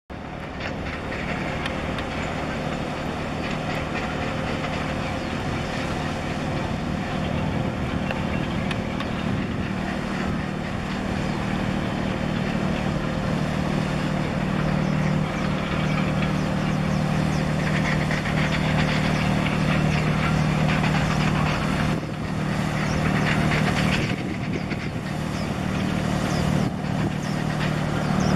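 Low, steady diesel engine drone of ships passing close, over a rushing hiss. The hum grows louder from about halfway through.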